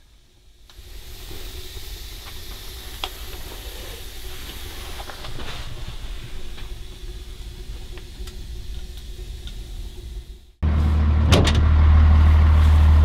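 A steady hiss with scattered faint clicks. About ten and a half seconds in it cuts suddenly to a much louder, steady low rumble of a running motor vehicle.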